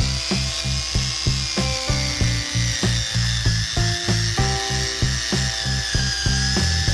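Background music with a steady beat over the high, steady whine of a cordless angle grinder with an abrasive pad stripping old antifouling paint and primer off an iron keel. The whine drops slightly in pitch near the end as the pad bears down harder, then recovers.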